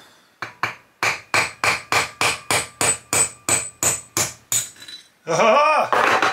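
A small hammer gently tapping a steel 8 mm bolt threaded into a broken .303 British case neck stuck inside a full-length sizing die, to drive the brass remnant out. There are about fifteen light, evenly spaced metallic taps, roughly three a second, each with a brief ring. The taps stop a little before a man's "Aha!" near the end.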